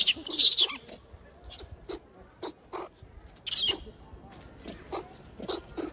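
Rhesus macaques making a string of short calls, with louder noisy bursts at the start and again about three and a half seconds in.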